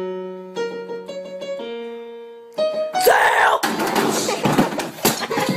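Electronic keyboard playing a few held notes that slowly fade. About three seconds in, a much louder, harsh noisy sound with irregular sharp hits cuts in.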